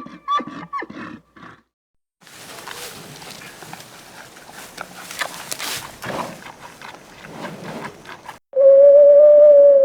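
A series of different animal calls: short gliding calls at the start, then a long rough, noisy stretch, then, about eight and a half seconds in, one loud, steady held call that falls off at the end.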